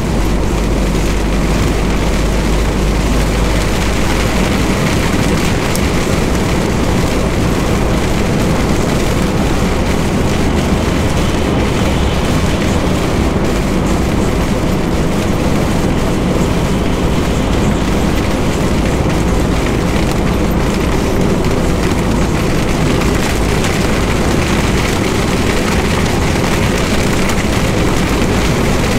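Steady, loud noise inside the cab of an MAN TGX semi-trailer truck driving in heavy rain: tyres on the wet road, rain on the windscreen and the diesel engine's deep rumble, with the windscreen wipers sweeping.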